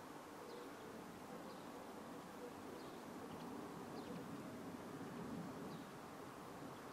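Bees buzzing in the flowering shrubs, a faint, wavering low hum, with short, faint bird chirps every second or so.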